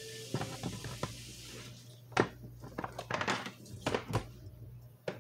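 Hard plastic clicking and knocking as a leg is pushed and worked into the body of a large plastic raptor toy, the Super Colossal Blue. The knocks come unevenly, the loudest about two seconds in and again about four seconds in.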